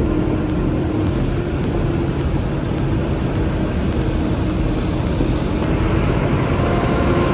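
Heavy diesel engine of a loaded Caterpillar 793 mining haul truck running steadily under load as it pushes a mining shovel up a grade.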